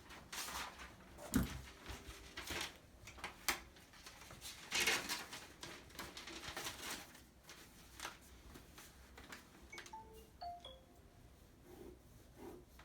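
Hand handling of small window-shade hardware: irregular clicks, knocks and rustles, with a longer rustle about five seconds in and a few faint short tones near the end.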